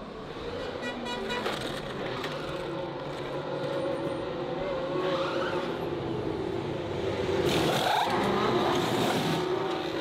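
Formula 1 car engine running during a pit stop: a steady drone that grows louder, with the pitch dipping and swinging back up about eight seconds in.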